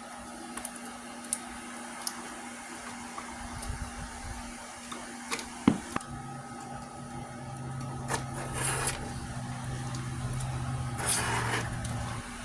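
A few clicks and knocks of parts being handled, then about halfway through a small electric motor starts and runs steadily for about six seconds, with two short gritty bursts over it, before it stops near the end.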